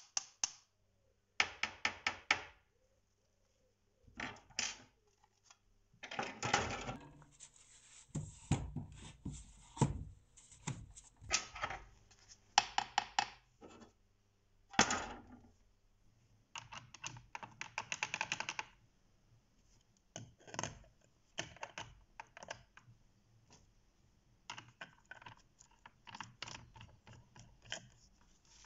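Bursts of quick clicks and taps with occasional knocks, from a small wrench working the screws of an old rusty hand saw's handle and from parts and tools handled on a workbench.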